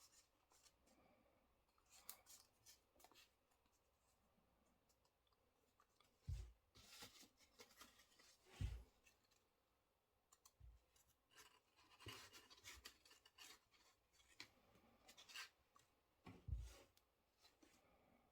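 Faint paper rustling and crinkling as a sheet of origami paper is folded and creased by hand, in short scratchy strokes, with a few dull thumps against the table.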